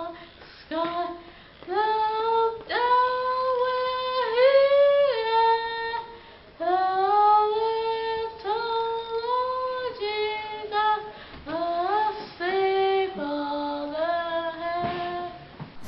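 A child singing solo and unaccompanied: a slow melody of held notes, with short breaths between the phrases.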